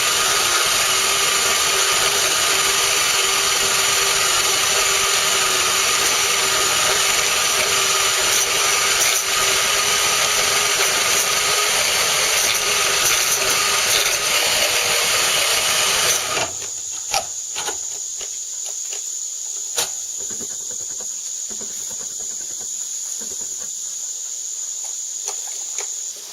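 A 10-amp Chicago Electric portable band saw cutting through metal, running steadily, then cutting out suddenly about two-thirds of the way in when its ground fault interrupter trips and kills the power. A few light clicks follow.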